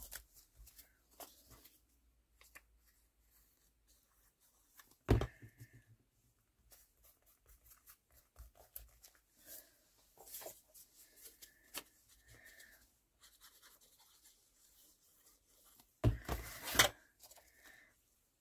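Paper crafting at a desk: faint rustling, scratching and rubbing of book pages and paper scraps as they are glued down. There is a sharp knock about five seconds in and a louder cluster of knocks and rustles near the end.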